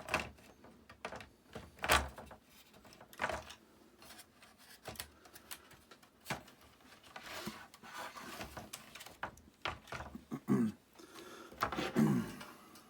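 Scattered knocks and clicks of hardware being handled: the BBC Micro's power supply and case being moved into place, with sharper knocks about two and three seconds in.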